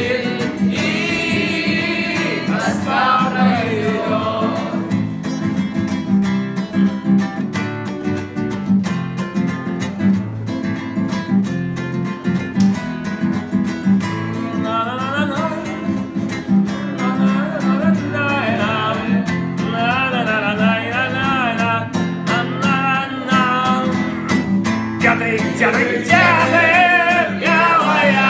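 Acoustic guitar strummed steadily while a group sings along, the voices dropping out for stretches and leaving the guitar on its own.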